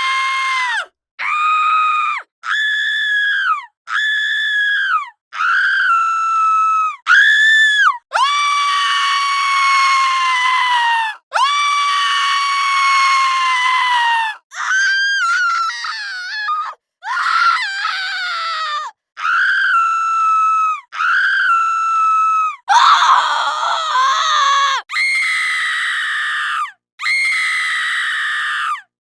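A woman screaming over and over in high-pitched, drawn-out shrieks: about fifteen screams, most a second or two long, a few held for about three seconds, each dropping a little in pitch as it ends.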